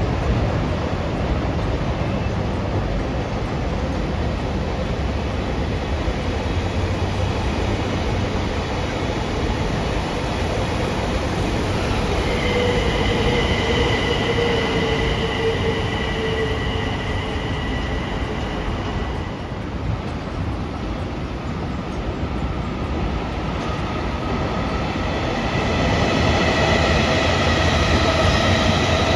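A train running past on the rails, a steady rumble with high steady whines that come in about midway, fade, and return near the end.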